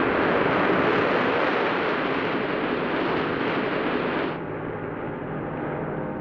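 Heavy sea surf crashing and breaking on rocks: a loud, rushing wash of noise that falls away abruptly about four seconds in.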